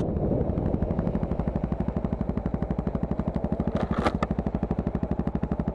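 Yamaha XT660X single-cylinder engine running at low revs, an even rapid thumping of about ten beats a second. A brief clatter comes about four seconds in.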